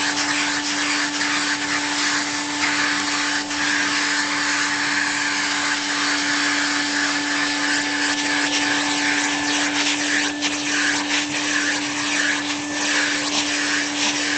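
A vacuum cleaner runs steadily, being used to hoover a cat's fur: a constant hum under a rush of air. The air noise wavers in the last few seconds.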